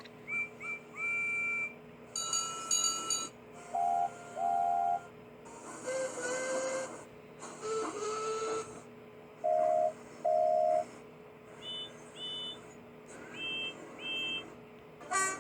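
A run of train whistle sounds: short blasts, mostly in pairs, each at a different pitch and tone, some single-note and some chords, with brief gaps between them.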